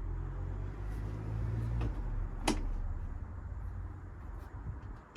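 Handling noise with a low rumble, then two light clicks about two and two and a half seconds in, the second sharper: the moped's key-released fuel cap being worked open.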